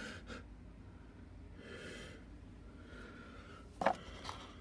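A person breathing out softly, then a single click near the end.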